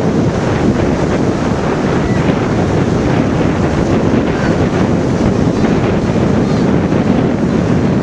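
Wind buffeting the camera's microphone: a loud, steady low rush with no breaks.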